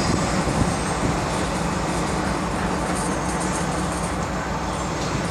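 CSR SDD7 diesel-electric locomotive running steadily as it slowly hauls a train of coaches, a low engine hum over rolling wheel noise.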